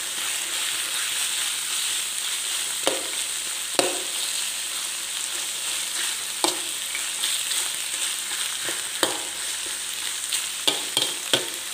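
Chicken pieces and red curry paste sizzling in hot oil in a wok with a steady hiss, while a metal spatula stirs them, scraping and knocking against the wok every few seconds, several times in quick succession near the end.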